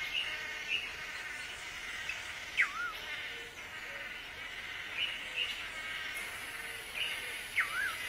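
Blue manakins calling at a lek: scattered short notes and two calls, about a third in and near the end, that drop steeply and then waver. Under them runs a steady insect hum, with a high thin insect hiss joining about three quarters in.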